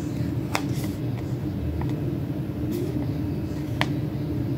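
Paper sticker sheet crackling in the hands as a sticker is peeled off, with about four short sharp crinkles, over a steady low hum.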